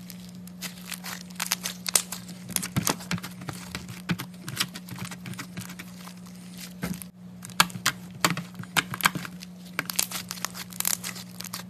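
Thick, fluffy slime kneaded and squeezed by hand, giving irregular crackling clicks and pops as the air pockets in it burst, over a steady low hum.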